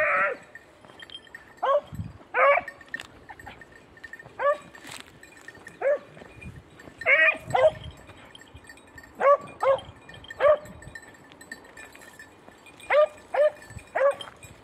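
Beagle hounds baying in short, irregular single and double bays: hounds giving tongue while working a hare's scent line.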